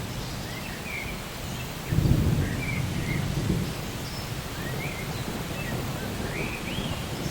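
Steady rain with a low rumble of thunder that starts suddenly about two seconds in and dies away over a couple of seconds, while a bird calls with short chirps throughout.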